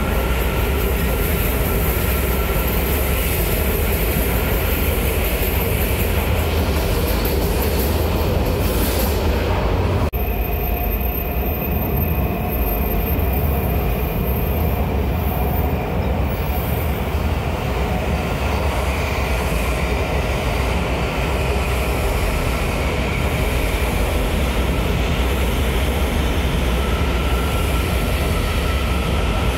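Washington Metro train running through an underground station: loud, steady wheel-and-rail noise with thin, steady squealing tones from the wheels. About ten seconds in, the high hiss drops away suddenly and the running noise carries on.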